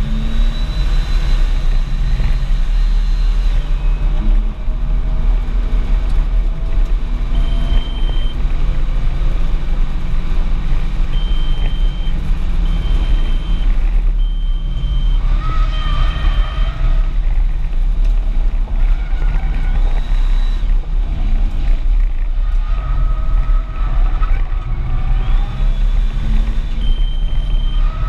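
Audi S4 engine and road noise heard from inside the cabin under hard driving: a heavy low rumble, with the engine note rising in pitch several times as the car accelerates and dropping between. A series of short, high beeps sounds several times through the middle and again near the end.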